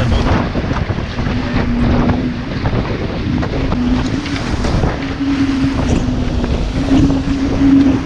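Wind buffeting the microphone and water rushing and splashing past the hull of a Diam 24 trimaran sailing fast in strong wind, with a steady hum that steps slightly up and down in pitch.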